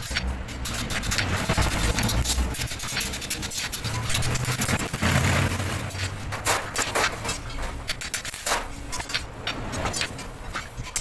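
Metal workshop noise: a low uneven rumble with many scattered metallic clinks, clatters and scrapes.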